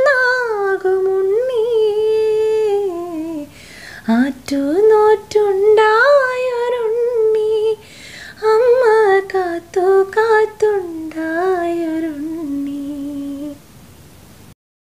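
A woman humming the closing melody of a Malayalam lullaby, unaccompanied, in long held notes that glide between pitches with short pauses for breath. She ends on a low held note near the end.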